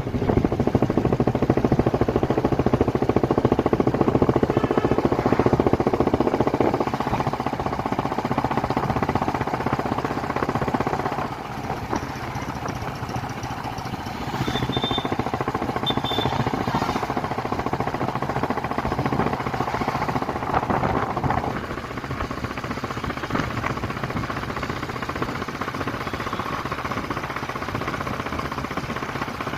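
Royal Enfield Bullet 350 single-cylinder four-stroke engine running, with its rapid pulsing exhaust note. The loudness steps down about a third of the way through, comes back up about halfway, and drops again about two-thirds in.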